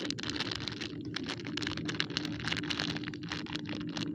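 A clear plastic lure packet crinkling and rustling in the hands as it is handled and opened, a dense, continuous run of fine crackles.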